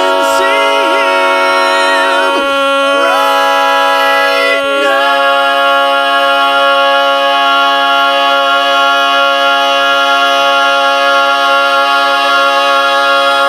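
Barbershop quartet of four men singing a cappella: the upper voices move over one held low note for about five seconds, then all four hold a long, loud final chord.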